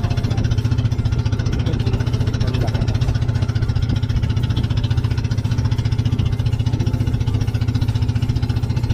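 Outrigger boat's engine running steadily at cruising speed, a fast, even low drone, with the rush of water along the hull.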